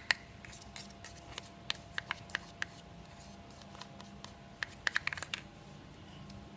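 Light clicks and taps of small hard objects being handled: a sharp pair at the start, a few scattered ticks about two seconds in and a quick cluster about five seconds in, over a faint steady hum.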